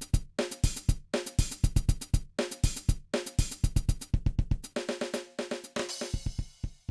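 Music with a drum kit playing a fast, steady beat over sustained pitched notes, with a cymbal crash about six seconds in.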